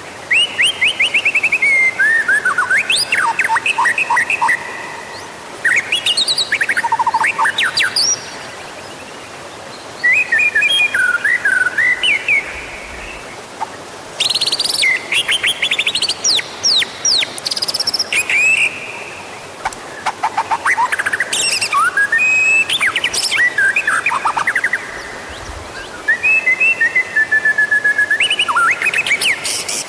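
White-rumped shama (murai batu) singing loudly in phrases two to five seconds long. Each phrase mixes rising and falling whistles, trills and rapid clicking notes, with short pauses between phrases.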